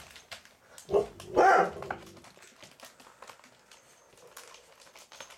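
Doberman puppy barking twice about a second in, a short bark and then a longer one, followed by faint light ticks.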